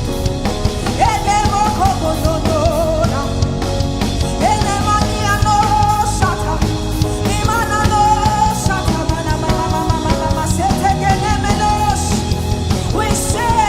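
Worship music from a band with drum kit and guitar, under a melody of long held notes that slide from one pitch to the next.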